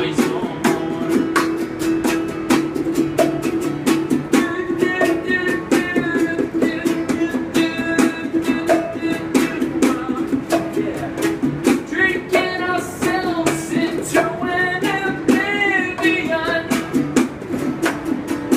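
Small acoustic guitar strummed while a wooden box drum is struck by hand in a quick, steady rhythm, with a man singing over it.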